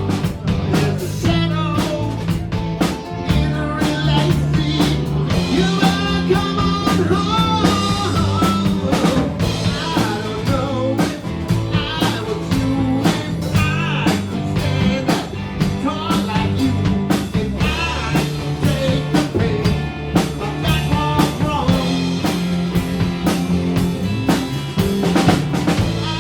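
Blues-rock band playing, with a steady drum-kit beat under held low notes and a lead melody that bends in pitch.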